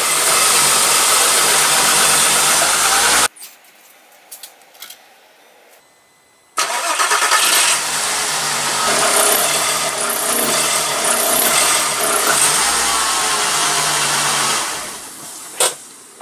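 2003 Volkswagen Jetta GLI's 2.8-litre VR6 engine running loudly close by, with some revving. It breaks off abruptly about three seconds in, comes back just as suddenly a few seconds later, and fades away near the end. The owner says it seemed to be running terribly, with the crankshaft position sensor fault (P0322) still logged.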